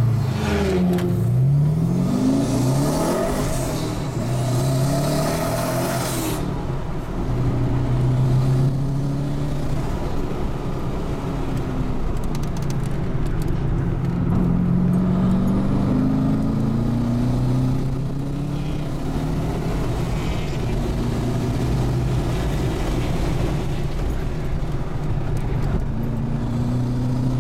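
Twin-turbocharged 6.0-litre V8 of a Holden Commodore SS wagon heard from inside the cabin, accelerating hard with its pitch climbing again and again through the first few seconds. A loud rushing hiss rides over the engine and stops suddenly about six seconds in. After that the engine note keeps rising and falling as the throttle goes on and off.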